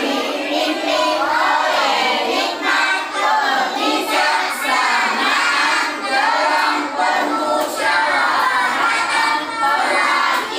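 A group of young children singing together in unison, a continuous chorus of high children's voices.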